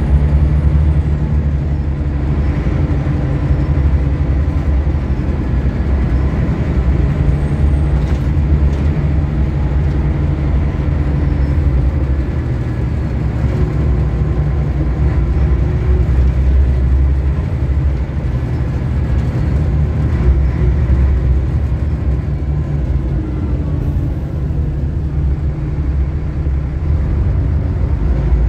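Scania L94UB bus's rear-mounted 9-litre five-cylinder diesel engine running as the bus drives along, heard from inside the passenger cabin as a steady low drone that changes a little in pitch now and then.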